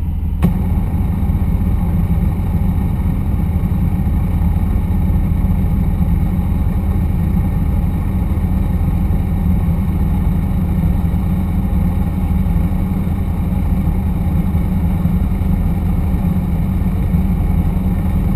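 Off-road vehicle engine idling steadily, heard close up through a camera mounted on its hood.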